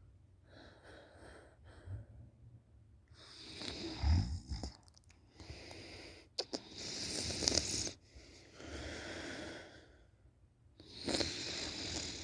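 A sleeping person snoring: a run of noisy breaths in and out, about one every two seconds, the loudest about four seconds in carrying a low rattling snore.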